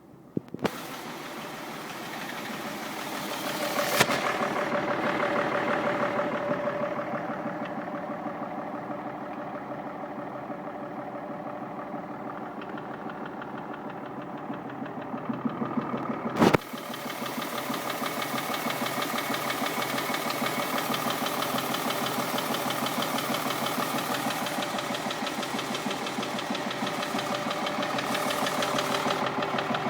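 BMW 330Cd's 3.0-litre straight-six diesel running with a fast, even knock. The owner later traced the noise to a screw from an intake swirl flap that had fallen into a combustion chamber. Two sharp clicks, one a few seconds in and one about halfway, are each followed by a louder engine sound.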